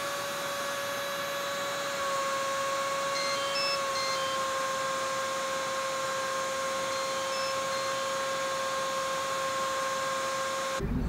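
A single steady electronic tone held unbroken for about twelve seconds over a hiss, with a few faint short high beeps; it cuts off abruptly near the end.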